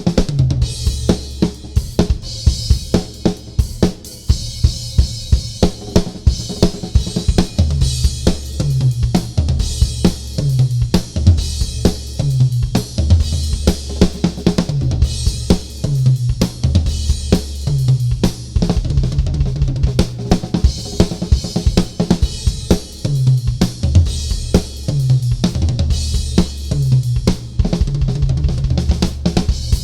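Acoustic drum kit solo on a Gretsch Renown maple kit with Sabian cymbals: fast, dense strokes on snare and toms over bass drum, with repeated deep tom or bass drum hits that dip slightly in pitch. Crash, ride and hi-hat cymbals keep up a bright shimmer throughout.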